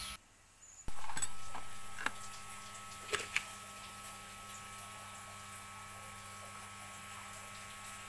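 Steady electrical hum and hiss of room background, with a few light clicks and taps about one to three and a half seconds in.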